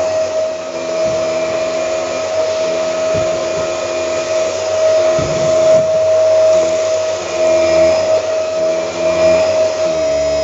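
Dyson DC24 Animal upright vacuum cleaner running, a steady high motor whine with rushing air.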